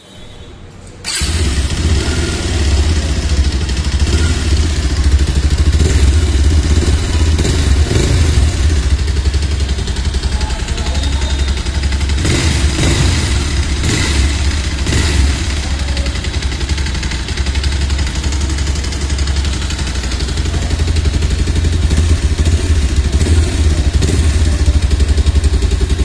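Bajaj Pulsar 220F BS6's single-cylinder engine running steadily, heard at the silencer. It comes in about a second in, with a few short sharper sounds between about twelve and fifteen seconds, and grows a little louder near the end.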